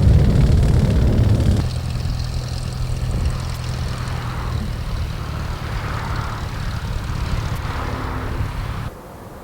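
Four-engined DC-8-55F freighter's jet engines at takeoff power, a loud low rumble that cuts off abruptly about a second and a half in. Then a quieter steady jet engine hum with a low droning tone from an aircraft lining up on the runway, which also cuts off abruptly near the end.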